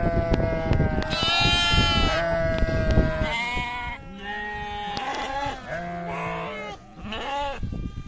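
Several sheep bleating, their calls overlapping one after another; one long bleat is held for about three seconds at the start, and a higher call cuts across it.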